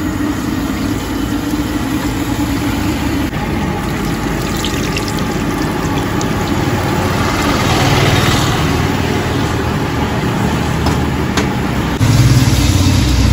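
Chicken vadas sizzling as they deep-fry in a kadai of hot oil, a steady dense hiss with a few clicks. Underneath runs a low engine rumble from road traffic, swelling about eight seconds in and louder near the end.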